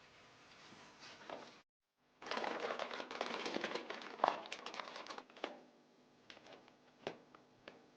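Plastic packaging crinkling and rustling as it is handled, loudest from about two to five and a half seconds in. Then a few light, separate clicks and taps.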